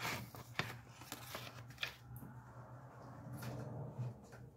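Handling noise: scattered light clicks and rustles as the phone and papers are moved and the phone is set down, then a soft hiss, over a steady low hum.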